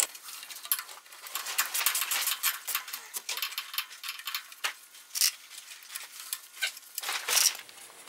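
Light, irregular metallic clicks and clinks of a socket wrench and nuts working on a generator's sheet-metal air-intake cover as the nuts are loosened. There is a louder clatter near the end as the cover is handled.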